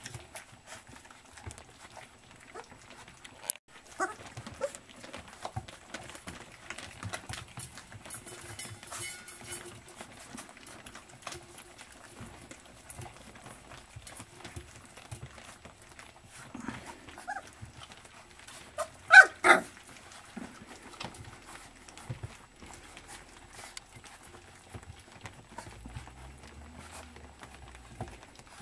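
A litter of puppies eating from a stainless-steel feeding trough: a steady patter of small clicks, smacks and ticks from feeding. Two sharp puppy yelps close together about two-thirds of the way through are the loudest sounds, with a few softer whimpers elsewhere.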